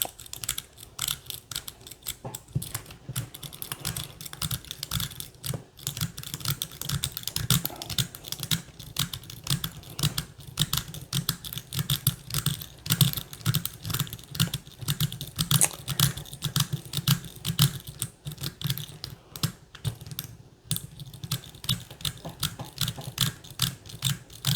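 Deforest rake pick being worked rapidly in and out of a Commando padlock's keyway, raking across the pin stack. It makes a fast, irregular run of small metallic clicks and scratches that goes on without a break.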